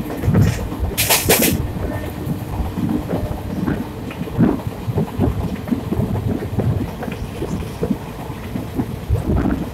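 Indian express passenger train running fast, heard at a coach window: a steady low rumble of wheels on rail with irregular knocks, and a brief loud rattle about a second in.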